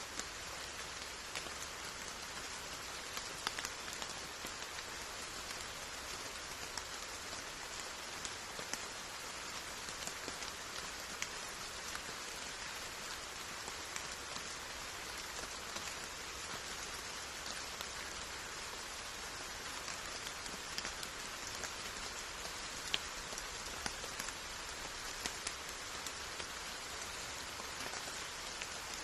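Steady rain falling, an even hiss dotted with the ticks of individual drops striking surfaces.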